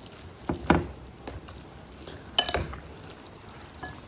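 A few light clinks and knocks of a utensil against cookware as noodles are stirred, the sharpest about two and a half seconds in.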